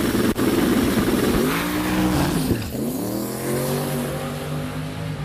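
Turbocharged 388-cubic-inch LS V8 in a 1987 Volvo wagon making a full-throttle drag-strip launch. It is loud and rough at first. Its pitch then swings up and down, dips sharply about two and a half seconds in, and climbs steadily as the car pulls away down the track.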